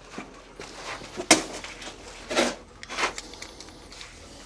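A sharp click about a second in, followed by a couple of short scraping or rushing noises: hands working the fittings of the well pump system.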